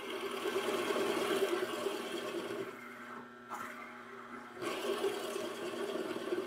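Drill press running with its bit boring into walnut, a steady motor hum mixed with the noise of the cut. The sound eases for about a second and a half past the halfway point, then picks up again.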